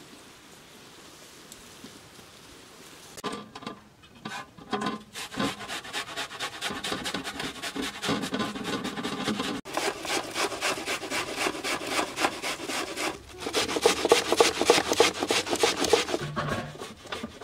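Onion being grated on a metal box grater over a steel bowl: quick, repeated rasping strokes that start about three seconds in and carry on with brief pauses.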